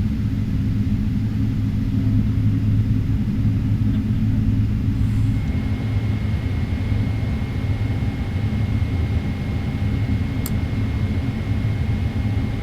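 Steady low rumble of a Boeing 777-300ER's GE90 engines at idle, heard inside the cabin as the aircraft taxis. A thin steady high tone joins about five seconds in, and there is a single brief click near the end.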